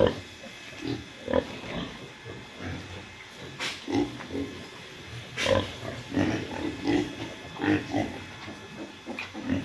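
Pigs grunting: short, irregular grunts one after another, with two louder, sharper sounds near the middle.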